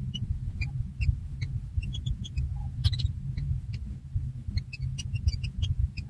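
Nestling birds peeping in short high cheeps, about two to three a second, over a steady low rumble that is the loudest sound.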